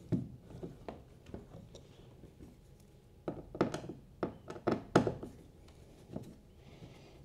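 Light clicks and knocks of a screwdriver working screws out of a rubber through-hull cable fitting on a kayak deck. A few scattered taps at first, then a run of sharper knocks about three to five seconds in.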